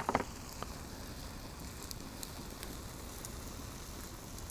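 Honey-marinated chicken fillet skewers sizzling as they cook: a steady hiss with scattered small crackles. A short knock sounds at the very start.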